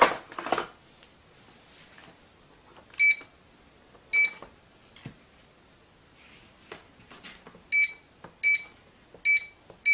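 Wireless home alarm control panel keypad beeping as keys are pressed: six short beeps of the same pitch at uneven intervals, the last four close together near the end, with a few faint clicks between.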